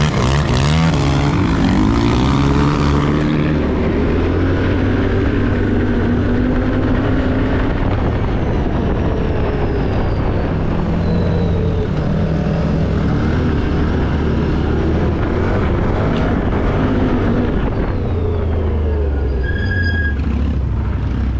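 Enduro dirt-bike engine pulling away, its revs climbing and dropping through the gear changes in the first few seconds, then running on under changing throttle while riding off-road. A short high tone sounds near the end.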